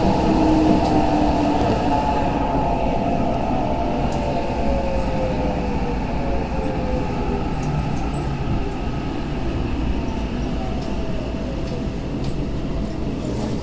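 Tokyo Metro 8000 series subway train braking into a station, heard from inside the car. A steady rumble slowly fades as the motor whine slides down in pitch with the falling speed.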